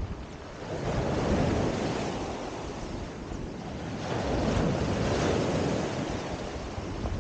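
Sea surf breaking and washing up a pebble beach, swelling louder twice as waves come in, with wind buffeting the microphone.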